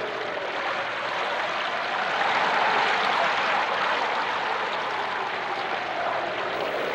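Steady rushing of wind and choppy harbor water, swelling and easing slowly, with a hollow tone that drifts up and down in it.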